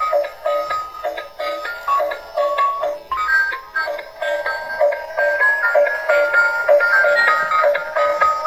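Electronic music: a high, bright stepping melody over a steady repeating pulse.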